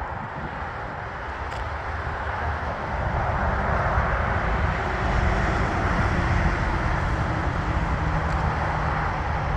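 Steady low rumble and roar of passing vehicles, growing a little louder about three seconds in.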